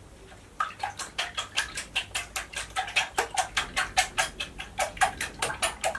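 Silicone-coated balloon whisk beating eggs in a glass bowl: quick rhythmic strokes against the glass, about five a second, starting about half a second in. The silicone over the metal wires keeps it from scratching the bowl.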